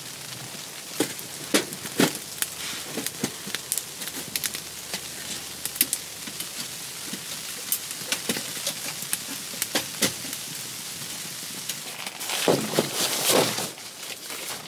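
Wood fire crackling in a small tent wood stove: irregular sharp pops and snaps over a steady hiss. Near the end comes a louder stretch of rustling.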